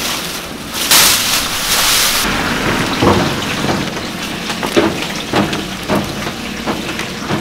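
Spicy fish-cake skewers simmering in a steaming steel tray of red broth, with a loud hiss for about a second near the start that cuts off sharply. After it come scattered clicks and knocks of the wooden skewers being handled.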